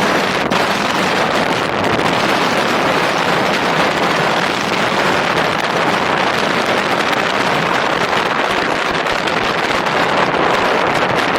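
Loud, steady wind rush on the camera microphone from riding an electric unicycle at speed.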